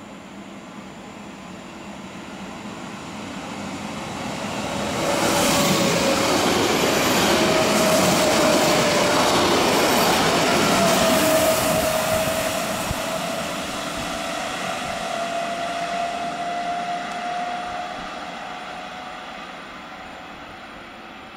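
Two coupled Newag Impuls EN63A electric multiple units approaching and passing at speed, a swelling rush of wheels and body that is loudest in the middle and then fades away as the train recedes. A single whine climbs slowly in pitch through the passage.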